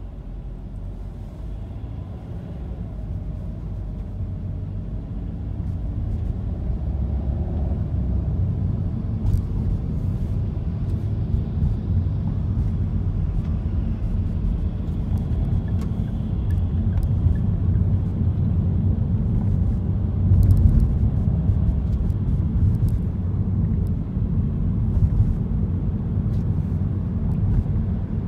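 Car cabin noise while driving: a low engine and road rumble that grows steadily louder as the car gathers speed, with a few faint clicks.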